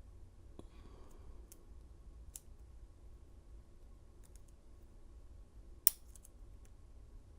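Faint metallic clicks and light scraping of lock-picking tools working in a padlock cylinder, with one sharp, louder click about six seconds in.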